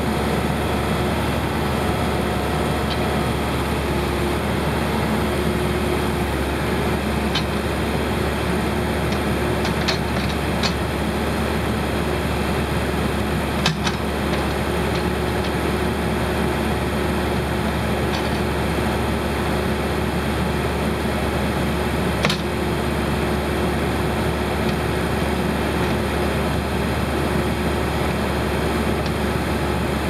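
Case 580L Series 2 backhoe's turbo diesel engine running steadily as the backhoe arm digs and pushes through brush, with a few short sharp clicks, the loudest about halfway through and again about three quarters of the way through.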